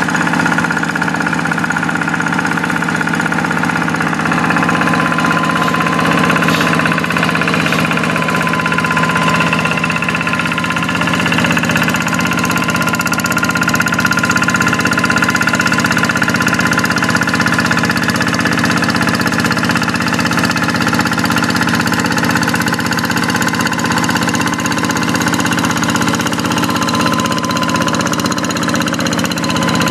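Kubota single-cylinder diesel engine of a Quick two-wheel hand tractor running steadily while plowing a rice paddy, with a faint higher whine over the engine note.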